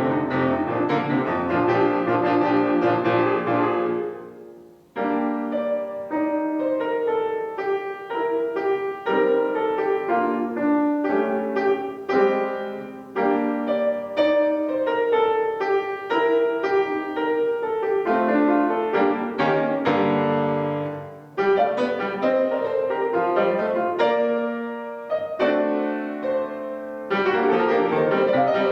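Solo piano playing a classical children's piece. The notes are mostly short and detached, with a brief pause about five seconds in.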